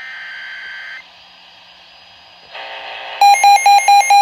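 Emergency Alert System alert tones: a buzzing digital data burst of the SAME header about a second long at the start. About three seconds in, a loud electronic attention tone begins beeping rapidly, about six beeps a second.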